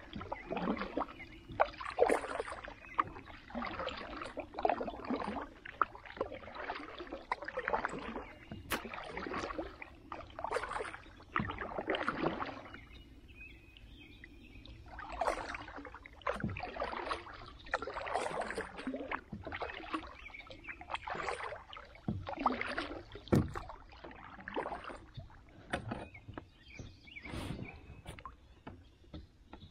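Kayak paddle strokes swishing and dripping through pond water, about one a second, with a pause of a couple of seconds midway.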